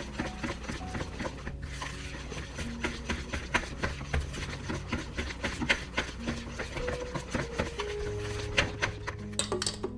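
Wire whisk beating sponge-cake batter by hand in a mixing bowl: a quick, uneven run of clicks and scrapes as the wires strike and rub the bowl's sides.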